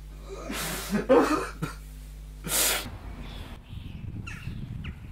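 A man crying into a handkerchief: breathy sobbing and sniffling, then a short, sharp, loud blow of the nose into it a little before the three-second mark. After that comes a faint, even rumble of outdoor background noise.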